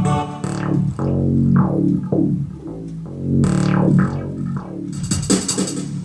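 Korg Pa50SD arranger keyboard playing through a MIDI test: a string of bass-heavy pitched notes, each with a bright attack that dies away quickly. About five seconds in, a bright hissing percussion pattern joins.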